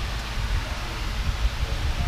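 Steady rumbling noise with a hiss, uneven in level but with no distinct events.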